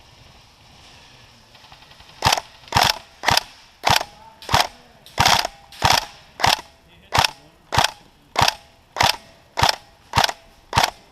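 SCAR-L airsoft rifle firing a steady string of single shots, about 16 sharp cracks a little under two a second, starting about two seconds in.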